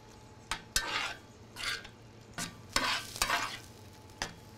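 A slotted metal spoon stirring thick ground-beef chili in a cast iron skillet: several irregular scraping strokes, some starting with a click of metal on the pan. A light sizzle of the cooking sauce runs underneath.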